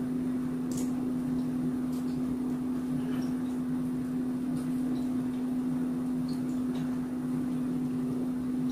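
Steady low electrical or mechanical hum of the room's background, with a few faint ticks scattered through it.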